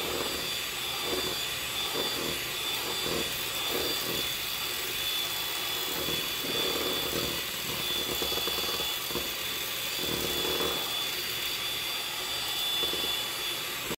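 Old electric hand mixer running steadily with a high motor whine, its beaters whisking raw eggs to a froth in a plastic bowl. It shuts off at the very end.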